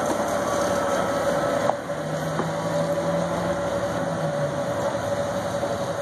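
Alishan Forest Railway train passing slowly: carriages rolling by with a steady engine drone and a constant thin tone as the red diesel locomotive approaches. A lower hum joins in about two seconds in and fades out near the end.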